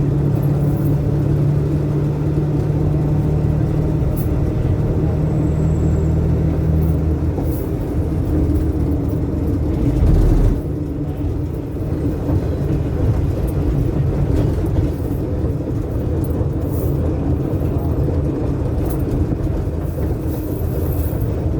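Minibus engine and road noise heard from inside the cabin: a steady engine hum that changes pitch about seven seconds in, with a brief low thud about ten seconds in.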